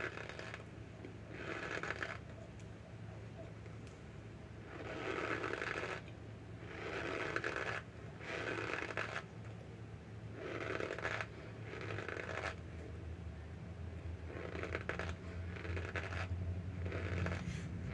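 Chewing a mouthful of cornstarch: squeaky, crunching bursts each under a second long, coming about every one and a half to two seconds, over a steady low hum.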